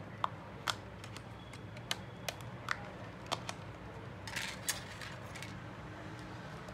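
Small repair tools clicking and tapping against a smartphone's parts: about eight sharp ticks spread over three seconds, then a brief scraping rustle, over a steady low hum.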